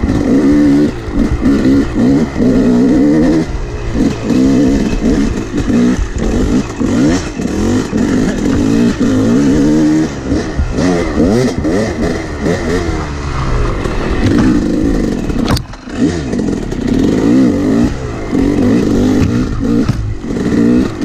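Yamaha 250 two-stroke dirt bike engine revving up and down as the rider opens and closes the throttle over a rough trail. About fifteen seconds in the engine briefly drops off, with a sharp click.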